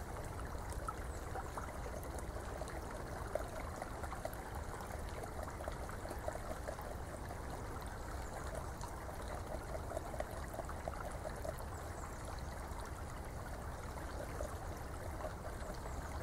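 Beaver gnawing and chewing on a twig, a run of small irregular crunching clicks, over a steady trickle of running water.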